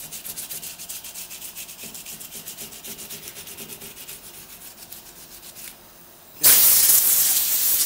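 Quick back-and-forth hand sanding with 150-grit sandpaper on the lip of a car wheel, about five strokes a second, scuffing the road rash before body filler goes on. About six and a half seconds in, a loud hiss of compressed air from a blow gun cuts in for nearly two seconds.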